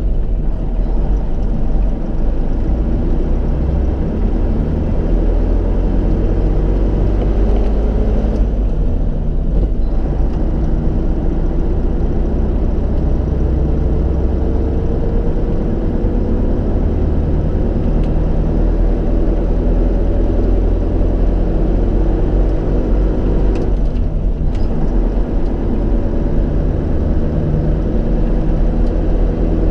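Tatra 8x8 truck's diesel engine running under way, heard from inside the cab as a loud, steady low drone. Its pitch rises gradually through the middle, with two brief lulls, about a third of the way in and near the end.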